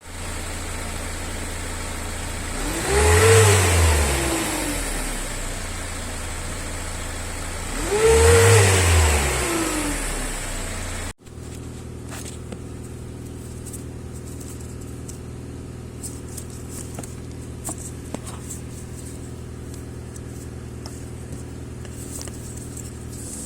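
Renault Trafic diesel van engine idling with a high steady whine, revved twice, each rev rising and falling back. Then, after a cut, it idles more quietly with an even beat and light ticks. It is noisy when revving, which the owner puts down to a failing turbo assembly.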